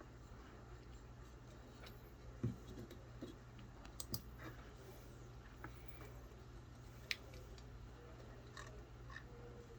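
Scattered clicks and light taps of a computer mouse and keyboard, with one duller knock about two and a half seconds in, over a steady low hum.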